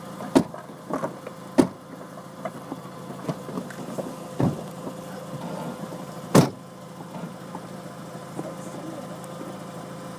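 A car engine idling steadily, with several clicks and knocks at the car's door. The loudest, about six and a half seconds in, is the driver's door being shut.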